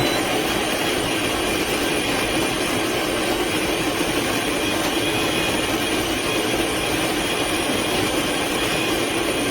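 Ollygrin electric conical burr coffee grinder running, its motor turning the burrs to grind coffee beans: a steady, unbroken whirring grind with a thin high whine over it, a little loud.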